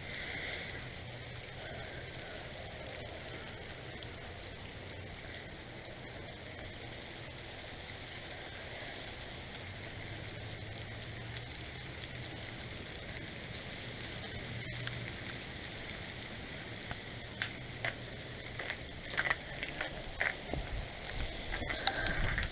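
Sleet and ice pellets falling and hitting the ground and surfaces, a steady crackling hiss, with a few sharper ticks of individual pellets striking in the last few seconds.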